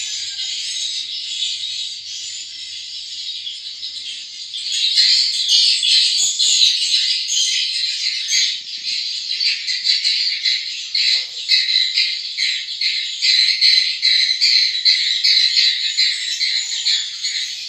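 Swiftlets twittering: a dense, continuous mass of high chirps that grows louder about five seconds in and turns into rapid pulsing chatter.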